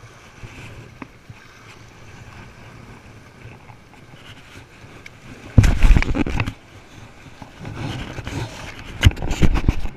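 Two spells of loud rustling and knocks against the wearable camera's microphone, one about five and a half seconds in and a longer one near the end, as the wearer handles things on the rocks. Underneath lies a low, steady hiss of wind and surf.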